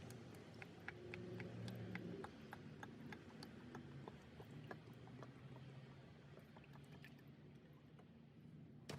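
Faint glugging of motor oil being poured from a quart bottle into the engine's oil filler, with light scattered ticks and one sharp click near the end.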